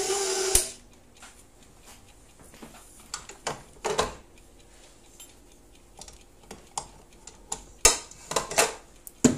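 KitchenAid Pro 600 stand mixer's motor running, switched off with a click a little over half a second in. Then scattered metal clicks and clunks of the stainless steel bowl and dough hook being handled, with a cluster of louder clanks near the end.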